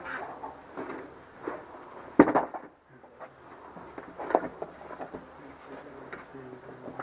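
Scattered knocks and clatter of stored items being moved and handled, a few sharp ones about a second apart, the loudest a little past two seconds in.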